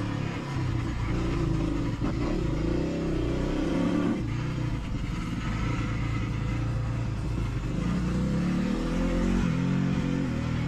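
Dirt bike engine under load, revving up and backing off repeatedly, its pitch rising and falling. There is a short dip about two seconds in and a drop in revs about four seconds in.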